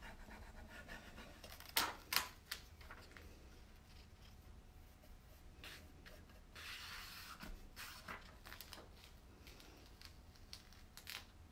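Rub-on furniture transfer being rubbed down through its clear plastic carrier sheet and the sheet peeled back, giving faint scraping and plastic rustling. Two sharp crackles come about two seconds in, and a longer rustle a little past the middle.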